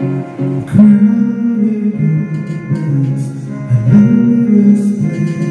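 Karaoke backing track playing from an HDT Premier-98i DVD karaoke player through loudspeakers: strummed guitar with long held notes.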